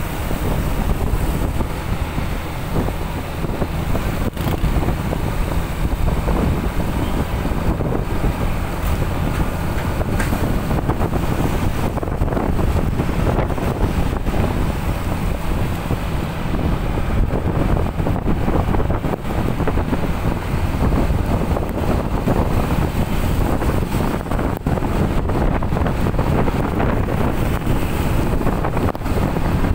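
Strong storm wind buffeting the microphone in a steady, heavy rush, over the sound of heavy rain.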